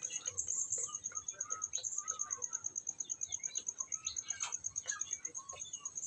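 Many short bird-like chirps and squeaks over a steady, high, rapidly pulsing trill like an insect's.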